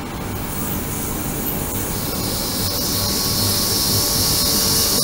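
Ultrasonic cleaner tank running, a high hiss of cavitating water that grows stronger and sharper about two seconds in.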